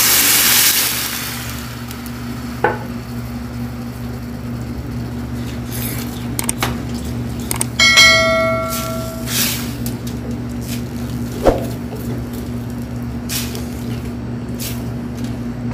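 Water poured into a hot stainless steel pan of barbecue sauce and seasoning sizzles loudly for the first second or two. Then a wooden spoon stirs the sauce, with a few sharp knocks against the pan, over a steady low hum. About eight seconds in, a short bell-like notification ding plays.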